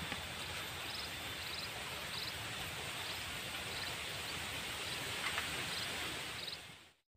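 Outdoor waterside ambience: a steady hiss of background noise with short, high, pulsing chirps from an insect or bird repeating every second or so. It fades out just before the end.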